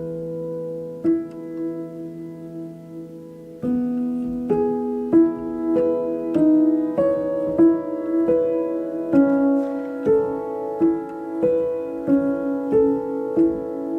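Background music: a solo piano playing a gentle, steady run of notes, with sustained chords near the start and a regular note pattern from about four seconds in.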